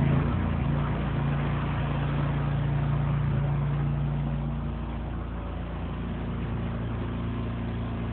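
Vehicle engine idling steadily, a low even hum that eases slightly about halfway through.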